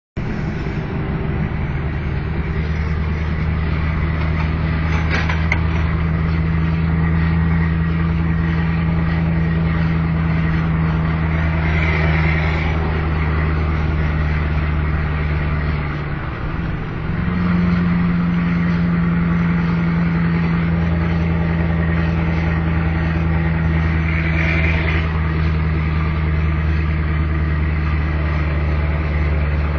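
Scania 164 480 truck's V8 diesel engine pulling steadily under load uphill with about 23 tonnes aboard. Past the middle the engine note dips briefly and comes back a little higher.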